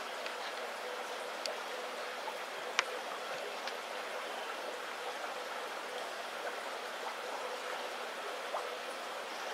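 Aquarium sponge filters bubbling: a steady watery rush of air-lift bubbles with a few small clicks, the sharpest about three seconds in.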